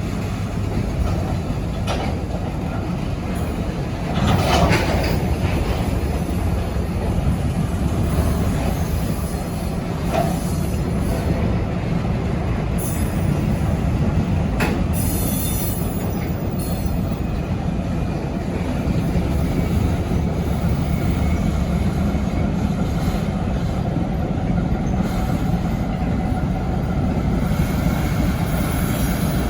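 ChME3 diesel shunting locomotive, its six-cylinder diesel running steadily, pushing a cut of railway wagons slowly. The rolling wheels squeal high-pitched now and then, most strongly about four seconds in and again in the middle.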